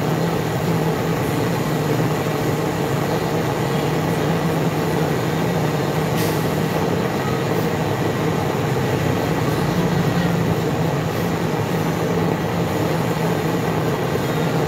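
Steady mechanical drone with a low hum, holding an even level without any change.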